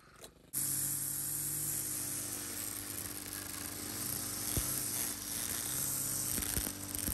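Stihl FS91R four-mix string trimmer running at full throttle, its line cutting through tall thick grass, with a few sharp ticks as the line strikes. The sound cuts in abruptly about half a second in, after a brief lull.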